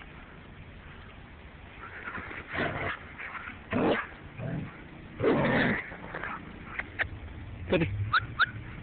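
A husky barking and yipping in play: a few rough barks from about two and a half seconds in, then short high yips near the end.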